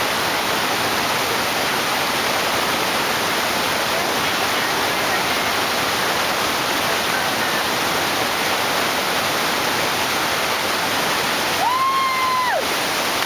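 Whitewater of the Lava Falls rapid on the Colorado River, rushing steadily. Near the end comes a single high call, about a second long, that rises, holds and falls.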